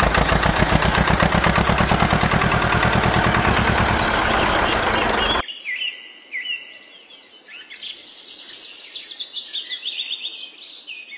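A small engine running at a fast, even beat, stopping abruptly about five seconds in; then birds chirping.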